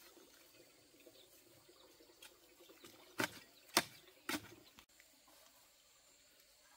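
Three sharp knocks or strikes, about half a second apart, over faint outdoor background.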